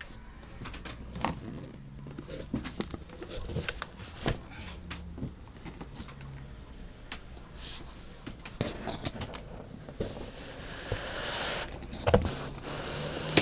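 Handling a large cardboard box: irregular taps, knocks and scuffs on the cardboard, then from about ten seconds in a steady rustling scrape, with one loud knock near the end.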